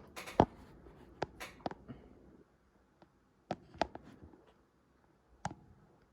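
Scattered single key presses on a Keychron Q1 mechanical keyboard with Gateron Brown switches and ABS keycaps: a handful of clicks in the first two seconds, two more about three and a half seconds in, and one near the end, with quiet gaps between.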